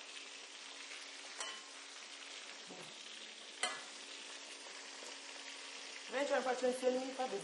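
Pieces of fish frying in hot oil in a wok: a steady sizzle, with two sharp knocks of the spatula on the pan. A person's voice joins near the end.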